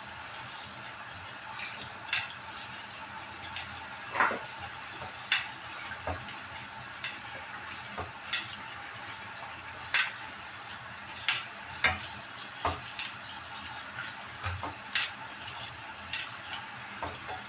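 Kitchen tap running steadily into a sink, with short, sharp snaps at irregular intervals, roughly one a second, as a knife cuts through crisp pechay (bok choy) stalks.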